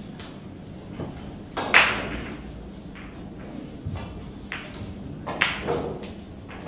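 Several scattered sharp knocks and clicks with a short echo, the loudest about two seconds in.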